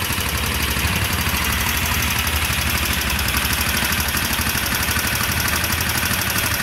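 Air-cooled single-cylinder four-stroke motorcycle engine idling steadily, running with HHO gas from a home-made electrolysis cell fitted.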